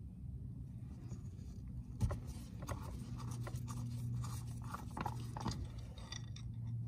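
Scrapes and clicks of the oil dipstick on a Polaris Sportsman 850 being screwed into its tube, tightened and pulled out by gloved hands to check the oil level, over a low steady hum.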